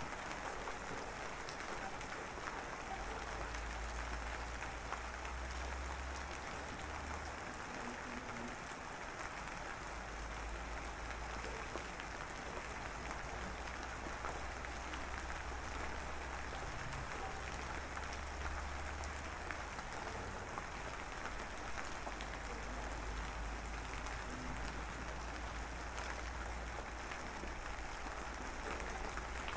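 Steady, dense pattering hiss, like rain or crackle, with a low rumble that comes and goes.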